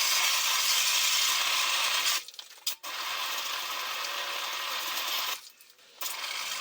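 Water rushing and splashing out of an electric water heater's bottom element opening as a hose flushes sediment from the tank: a steady hiss that stops briefly twice.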